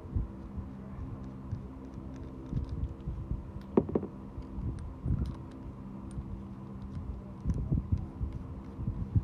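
Handling noise as the metal barrels and parts of a Diana Chaser air gun kit are picked up and turned over in a foam-lined case: low bumps and light clicks, with one sharper knock about four seconds in. A steady low hum runs underneath.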